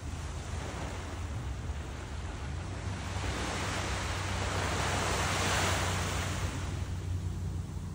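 Small ocean waves breaking and washing up a sandy beach, swelling about halfway through and fading near the end. A steady low rumble of wind on the microphone runs underneath.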